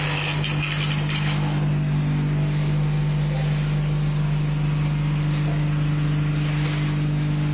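A machine motor running continuously with a steady low hum and an even rattling noise over it, typical of the concrete vibration table or mixer used in making paver tiles.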